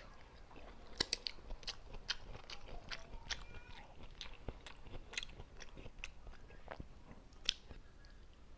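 Close-miked chewing of crunchy raw green mango: a quick run of crisp crunches and wet mouth clicks, thinning out toward the end, with one sharper crunch near the end.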